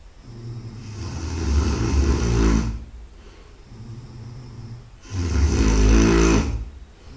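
A person snoring loudly: two long snores, each lasting about two seconds, with a quieter breath between them.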